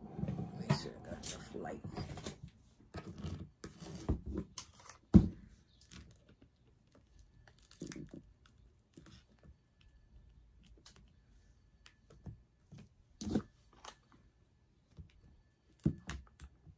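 Handling sounds of craft work at a tabletop: a hot glue gun and paper pieces are set down and pressed into place, giving scattered knocks and taps with some light paper rustling. The loudest knock comes about five seconds in, and smaller ones follow at intervals.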